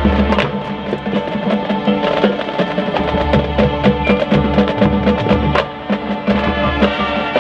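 High school marching band playing its field show: brass and winds hold chords over a busy pattern of sharp percussion hits, with low drum swells underneath.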